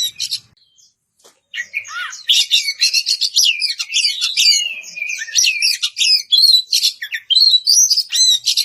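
Oriental magpie-robin (kacer) singing a loud, fast, varied song of whistles, trills and rough notes: its challenging song calling out a rival. The song breaks off briefly about half a second in, then runs on without a pause.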